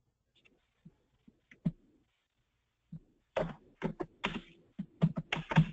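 Typing on a computer keyboard: a few light, scattered taps, then a quick run of keystrokes from about three and a half seconds in.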